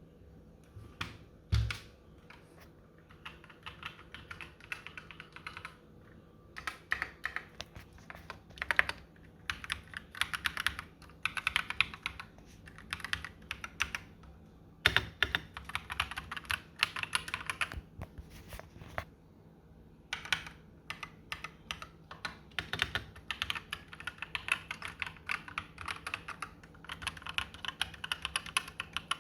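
Typing on an Akko 3087 tenkeyless mechanical keyboard: runs of rapid key clacks broken by short pauses, with a few harder single keystrokes.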